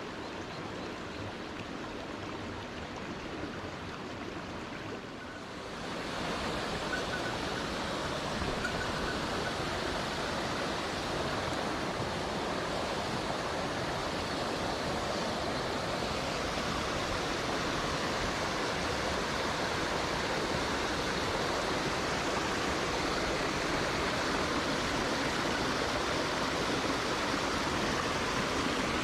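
Mountain stream running over rocks: a steady rush of water that grows louder about six seconds in.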